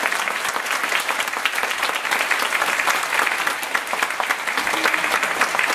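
Audience applauding steadily: many hands clapping together in a dense, even patter.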